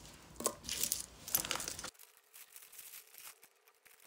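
Tangled metal jewellery pieces and glass beads clinking and jingling as they are handled: a dense run of clinks in the first two seconds, then only faint scattered clicks.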